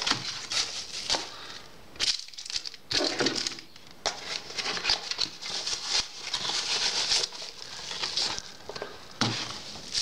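Cardboard boxes and plastic bubble wrap being handled and unpacked: irregular rustling and crinkling.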